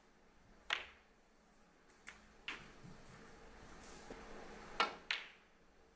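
Sharp clicks of snooker balls during a break as the black is potted: one click under a second in, two more about two seconds in, and a close pair near the end, over a quiet hall hush.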